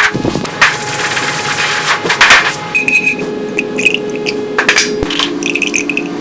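Irregular knocks and scrapes from hand tools being worked, over a steady low hum.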